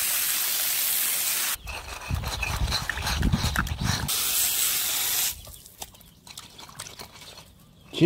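Water running and splashing as a ceramic bowl is rinsed clean, an even hiss that cuts off abruptly about a second and a half in. Low rumbling handling noises follow, then fainter noise.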